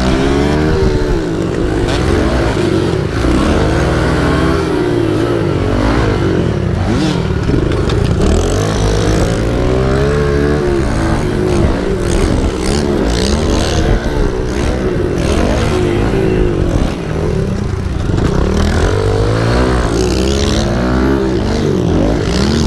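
Kawasaki KLX 110 pit bike's small four-stroke single-cylinder engine being ridden hard, its pitch rising and falling over and over as the throttle is opened and closed.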